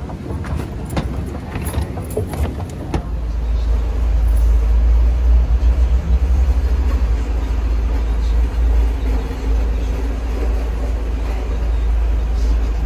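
Steady low rumble inside a moving shuttle's passenger cabin. It is preceded by a few seconds of scattered clicks and knocks.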